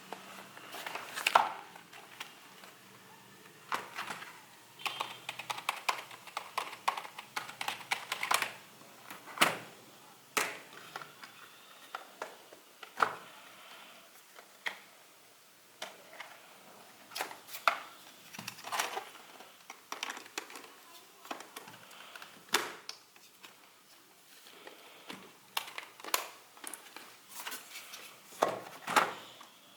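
Keys of a Corsair K55 RGB membrane gaming keyboard being pressed: irregular runs of soft key clicks and taps, with some louder single knocks among them.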